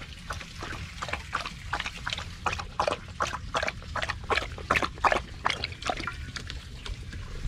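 A dog lapping water from a stainless steel bowl: a quick run of wet laps, several a second.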